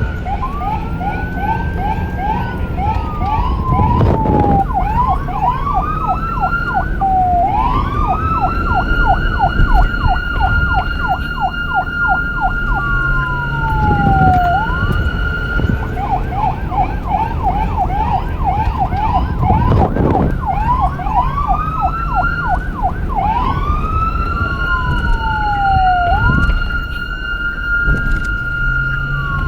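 Police car siren cycling between a slow rising-and-falling wail and a fast yelp of about three sweeps a second, over a steady high tone. A low rumble runs underneath.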